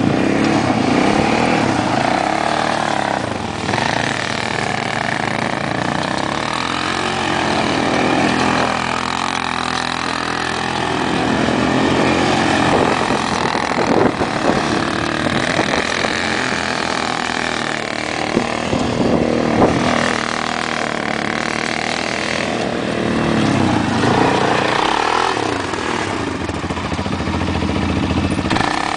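ATV (quad bike) engine running, its pitch rising and falling again and again as the throttle is opened and eased off.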